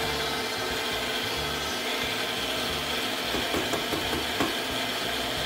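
Sunbeam stand mixer running steadily with its dough beaters working stiff bread dough in a metal bowl. A few short scraping strokes come a little past the middle.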